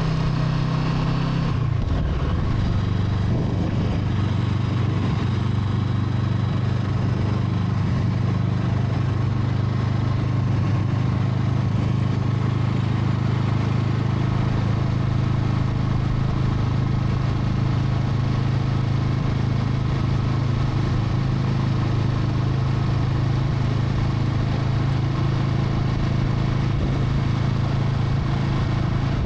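Brixton Crossfire 500's parallel-twin engine running at a steady, even note, with a slight change in tone about two seconds in.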